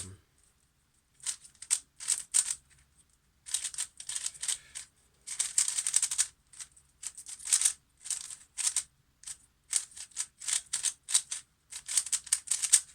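Qiyi Warrior S 3x3 speedcube being turned by hand: rapid plastic clicking and clacking of the layers in quick flurries with short pauses between them. The cube is tightly tensioned as it comes out of the box.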